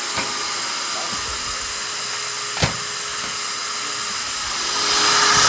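Steady fan-like whirring hiss that grows louder near the end, with one sharp metal click about halfway through as the carpet power stretcher is set.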